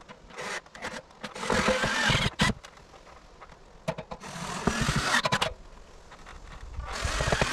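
Power drill driving screws to fasten board-and-batten siding boards, running in three spells of a second or more each with short pauses between.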